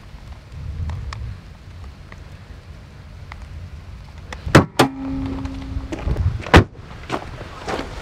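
Wind rumbling on the microphone in a snowstorm. About four and a half seconds in come two sharp knocks in quick succession, then a steady tone for about a second and a heavy thud near the end.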